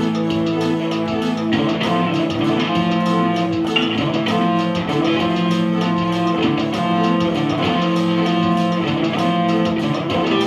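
Electric guitar played through a small practice amp together with an electronic keyboard holding chords, the chords changing every second or so; no drums and no singing.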